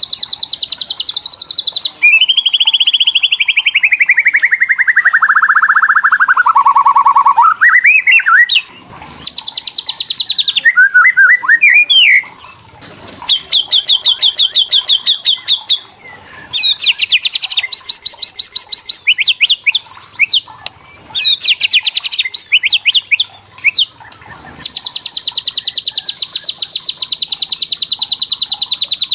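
White-rumped shama (murai batu) giving its kretekan, the agitated rattling call: long, very rapid high trills, one sliding steadily down in pitch a few seconds in, then a string of shorter rattles and a long high trill near the end.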